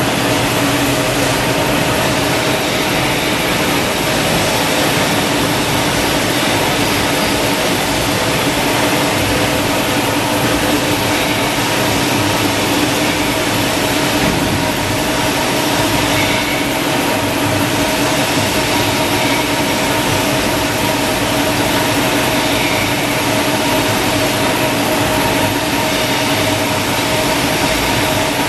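Paper roll production line running: steady machinery noise with a constant hum.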